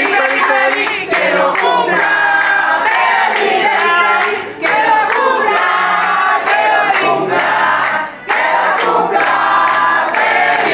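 A crowd of men and women singing together loudly, with hands clapping in a steady beat about twice a second.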